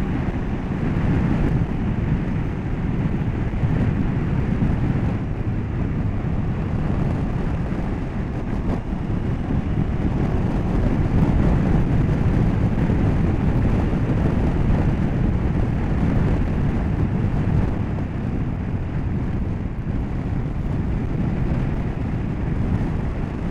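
KTM motorcycle ridden at a steady road speed: engine and wind rush blend into a steady low rumble with no speech.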